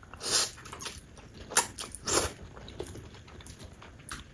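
Close-miked eating: spicy instant noodles slurped and chewed. Several short slurps a second or so apart.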